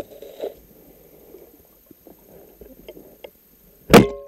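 Underwater sound: faint scuffling and bubbling as the diver moves through the water. About four seconds in comes one loud, sharp clack with a brief metallic ring, typical of a speargun being fired.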